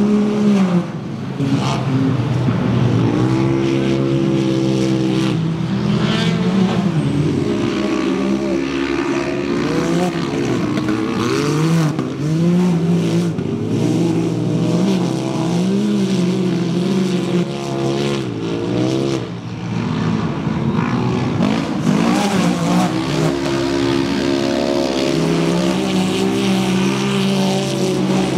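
Side-by-side UTV engines racing on a dirt track, revving up and dropping back over and over as they accelerate and ease off through the turns.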